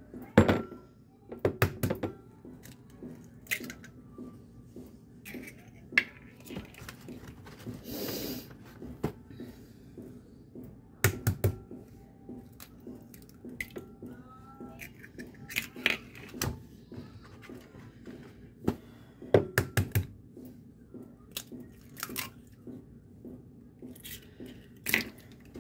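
Kitchen clatter: sharp knocks and clinks of dishes, pans and utensils being handled, in clusters every few seconds, with a brief hiss about eight seconds in.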